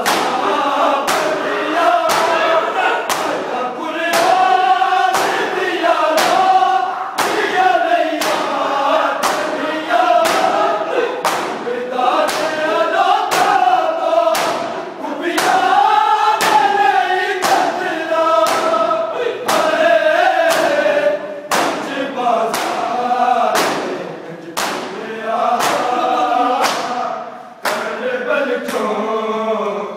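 A group of men chanting a Shia noha, mourning lament, over a steady rhythm of sharp slaps from bare-handed matam, chest-beating, by many men in time together.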